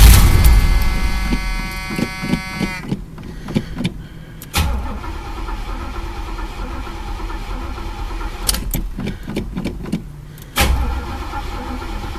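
Chevy El Camino's starter cranking the engine in about three long bursts without it firing. The engine is starved of fuel: the tank is empty although the broken gas gauge read full.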